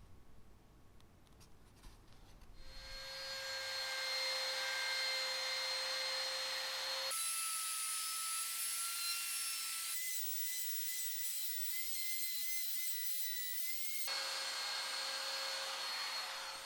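Steady abrasive rubbing of a tool on a workpiece, a continuous hiss with no separate strokes, whose tone changes abruptly three times.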